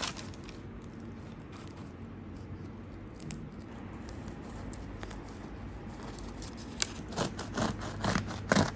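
Faint room tone, then about seven seconds in a bread knife starts sawing through a crusty flaxseed loaf, a run of short cutting strokes about three a second.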